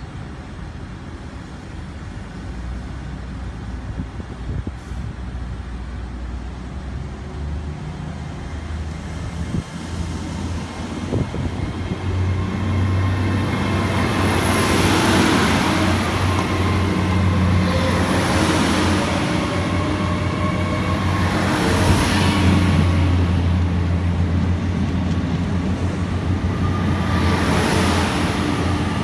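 A GWR Class 802 bi-mode intercity train pulling out of the station on its diesel engines, the low engine hum growing louder about twelve seconds in. A faint high whine runs over it, and from about halfway a whoosh repeats every three or four seconds as each carriage passes close by.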